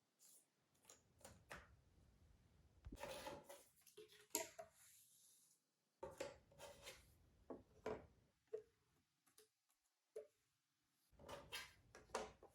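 Quiet handling of cardboard jigsaw puzzle pieces: scattered soft clicks and rubbing as pieces are picked up, slid on the table and pressed into place, coming in clusters with short pauses between.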